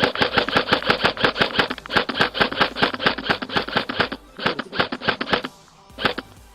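Airsoft gun firing on full auto: a long rapid string of shots lasting about four seconds, a shorter burst after a brief pause, then a single shot near the end.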